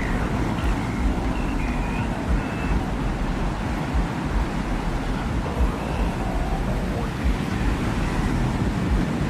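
Steady desert wind with a deep low rumble underneath. Faint, short high tones drift in and out now and then.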